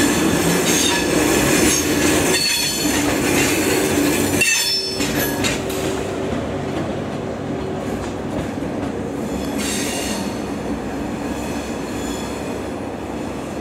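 Thalys TGV high-speed trainset rolling slowly through the station tracks, its wheels squealing in several high, wavering tones over a steady low rumble. The squeal is loudest in the first half and flares up again briefly past the middle.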